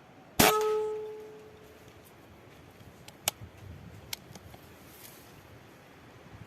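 Single air-rifle shot: a sharp crack with a brief metallic ring dying away over about a second. Two small sharp clicks follow about three and four seconds later.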